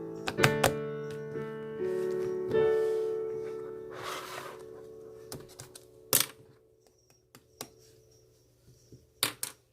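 A few sustained instrument notes struck in the first few seconds, ringing and slowly fading, followed by scattered sharp clicks and taps, the loudest about six seconds in and twice near the end.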